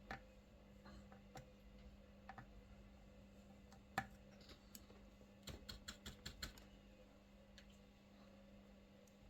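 Faint scattered clicking and tapping, with one sharper click about four seconds in and a quick run of about eight clicks a little past the middle, over a steady low hum.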